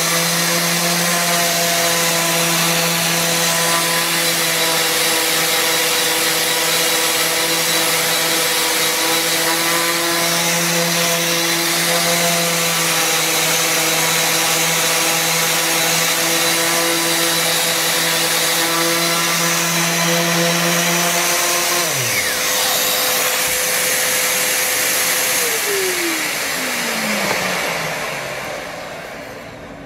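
Parkside random orbital sander running steadily as a 125 mm hook-and-loop sanding disc works a raw pine board. About two-thirds of the way in it is switched off and its hum falls away. A second hum holds a few seconds longer, then winds down in pitch and fades.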